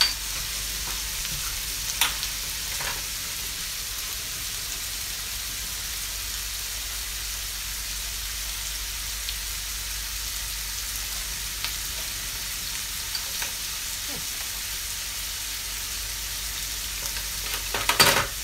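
Shrimp sizzling in oil in a nonstick frying pan, a steady hiss, with a few light clicks and a short cluster of knocks near the end.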